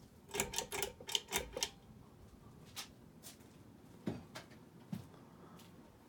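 Ceiling fan's pull-chain switch clicking several times in quick succession, with the metal chain jingling, then a few scattered lighter clicks and knocks, over the quiet steady running of the Hunter Dimensions fan.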